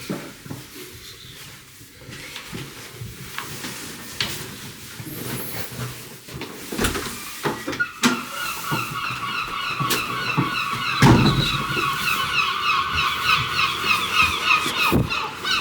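A gull calling, a long run of rapid, repeated squealing notes that starts about eight seconds in and carries on almost to the end. A low thump comes about eleven seconds in.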